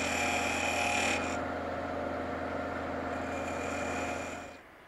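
Wood lathe running while a 1/4-inch square scraper bores a recess into a spinning wooden knob: a steady hum under a hissing scrape of cutting. The scrape comes in two spells, the second softer, and everything stops about four and a half seconds in.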